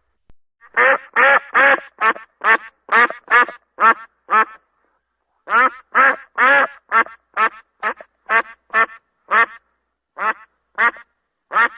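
A duck quacking in repeated short quacks, about two or three a second, in two runs with a one-second pause between them, then a few more spaced-out quacks near the end.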